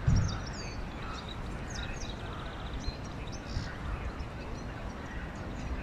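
Small birds chirping and twittering, with short upward and downward chirps and a rapid trill a couple of seconds in, over a steady low outdoor rumble. A dull low thump right at the start is the loudest sound.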